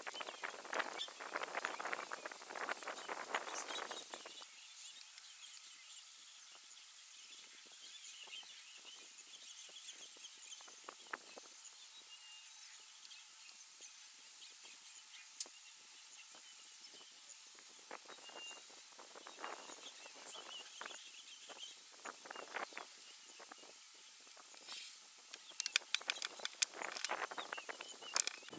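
Outdoor bush ambience: a steady, high-pitched pulsing trill throughout, with crackling rustles in the first four seconds and again in bursts later on and near the end.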